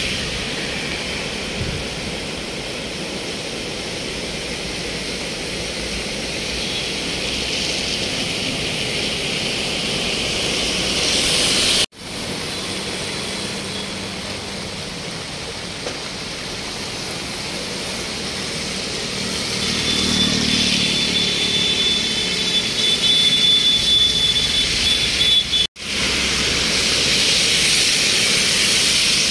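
Fast floodwater rushing along a street, a steady noise, then road traffic: vehicles passing, with tyres hissing through water on a wet road. The sound breaks off abruptly twice.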